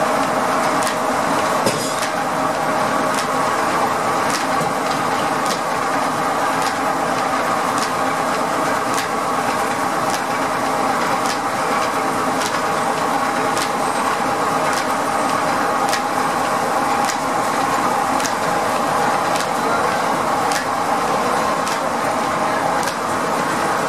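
Steam-powered sawmill's flat drive belts, pulleys and large circular saw blade running idle at a steady speed, with a light regular click roughly once a second.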